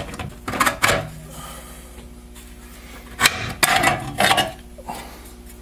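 Rear band of a Turbo 400 transmission being worked out of the aluminium case by hand, the metal clinking and scraping against the case in a few short spells of clatter, about half a second in and again from about three to four and a half seconds in.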